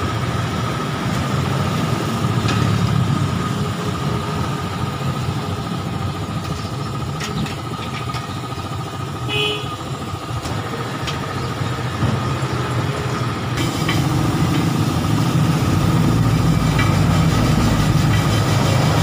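A motor running steadily, a low hum with a constant whine over it, with a few scattered clicks. About two-thirds of the way through, the low hum becomes heavier.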